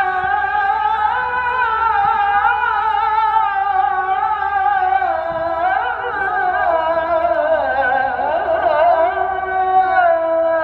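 A single voice singing a Middle Eastern-style melody in long, wavering held notes with slow ornamented glides in pitch.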